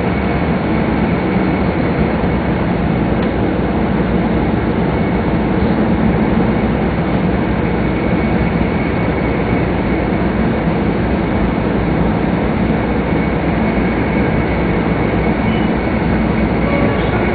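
Steady running noise inside a double-decker MAX Shinkansen car on the Jōetsu Shinkansen, heard from the upper deck: a constant rumble and rush from the wheels, track and air as the train runs along.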